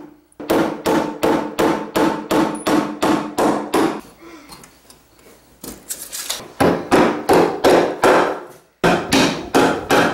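Claw hammer tapping the hooks of a metal electrical outlet box into a wooden 2x4 stud: three runs of quick blows, about three a second, each with a short metallic ring. The first run is followed by a pause of about two seconds.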